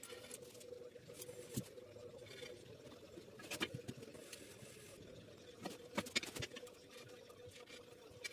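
Faint scattered clicks and light knocks, a few close together about two-thirds of the way in, over a faint steady hum.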